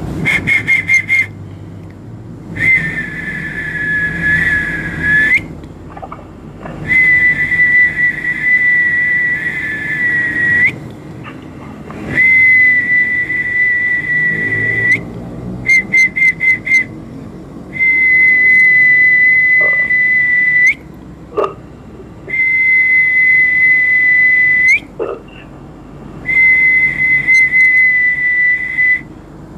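Whistling: long held notes on one high pitch, each lasting three to four seconds with short breaks between them, and quick runs of short staccato toots near the start and about halfway through. The whistling is used as a 'sound energy' healing treatment.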